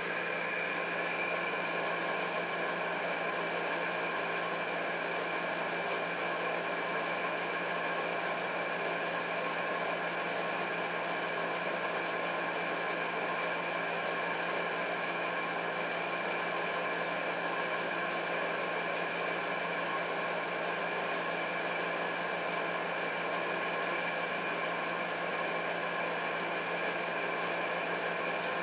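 Steady machine hum with several constant tones over a faint hiss, unchanging throughout.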